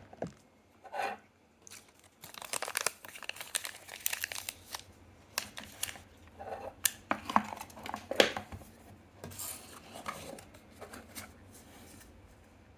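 Packaging rustling and crinkling, with scattered small clicks and knocks, as a stainless-steel and PEI fidget slider is packed back into its box.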